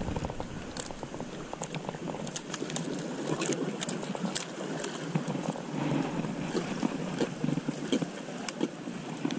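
Water lapping against the rocks of a riprap shoreline, with scattered sharp clicks and knocks throughout.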